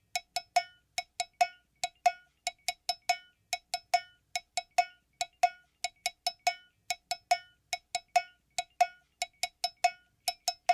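Music intro: a single high pitched percussive note, like a cowbell or woodblock, struck over and over in a quick syncopated rhythm, about three to four hits a second.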